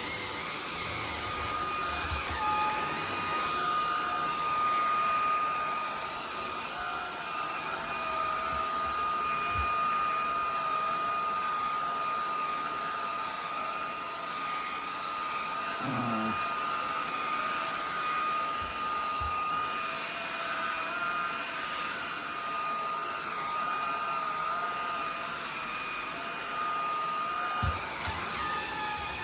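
Vacuum cleaner running steadily with a constant high whine over its rushing air, the lower hum wavering a little, and a few soft bumps.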